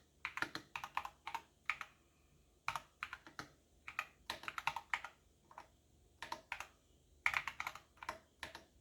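Typing on a computer keyboard: quick, uneven runs of key clicks, broken by short pauses about two seconds in and again around six seconds in.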